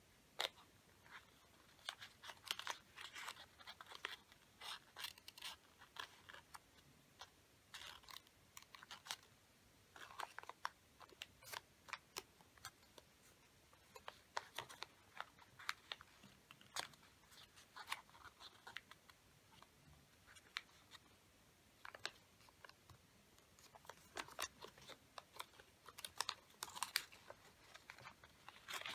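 A folded sheet of origami paper being handled and creased by fingers: soft crinkling and sharp little clicks in irregular clusters.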